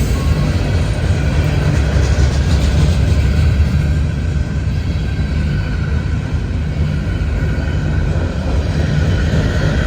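Freight train cars rolling past close by: a steady, loud low rumble with no break.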